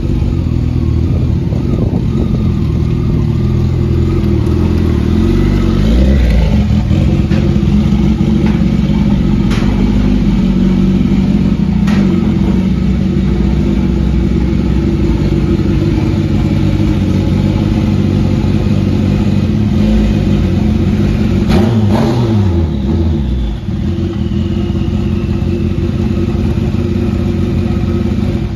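Motorcycle engine in a home-built car running loudly and continuously, its revs rising and falling a few times, with a few sharp clicks.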